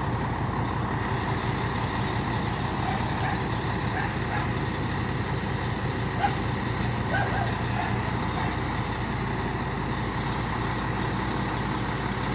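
Truck's diesel engine running steadily at a constant pitch.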